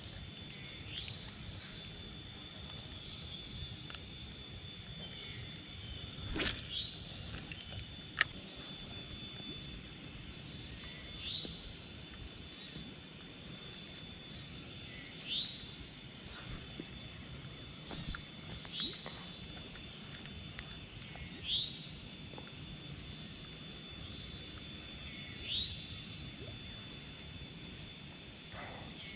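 Songbirds singing outdoors: one bird repeats a short rising whistled note every three to four seconds, with quick high notes from others, over a steady thin high tone and a low background hum. A single sharp click comes about eight seconds in.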